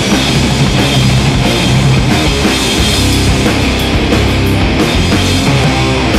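Rock music soundtrack with a driving drum beat and guitar.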